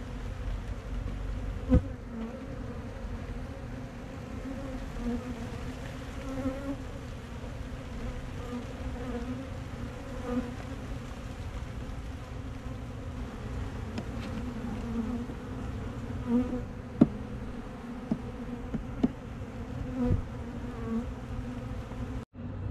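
Honeybees buzzing steadily around an opened hive. A few sharp knocks come through, one early on and several in the second half.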